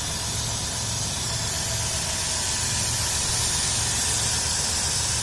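Dodge Grand Caravan's 3.3-litre V6 idling steadily under the open hood, smooth with no knocks, with a steady hiss over the low engine hum.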